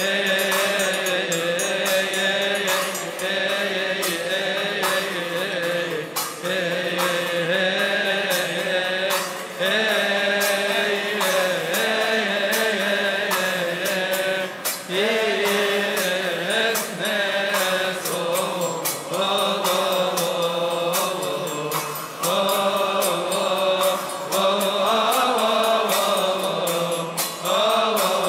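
A man's solo voice chanting a Coptic Orthodox hymn to the Virgin Mary into a microphone, in long held notes that bend slowly in pitch, with short breaks for breath every few seconds.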